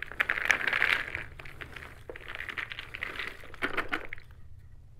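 Several hundred old cardboard jigsaw puzzle pieces poured from their box onto a table: a dense patter of many small pieces sliding and dropping, thinning out about four seconds in.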